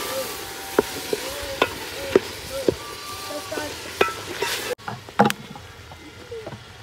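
Food frying in a pot, a steady sizzle, while a spoon stirs and scrapes against the pot with repeated knocks and short squeaks. The sizzle cuts off abruptly near the end, leaving a few quieter knocks.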